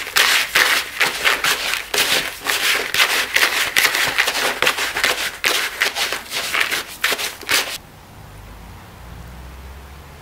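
Gritty scraping and rattling of crushed pumice and cement mix being stirred hard with a stick in a plastic bucket, in fast uneven strokes. It stops abruptly about eight seconds in.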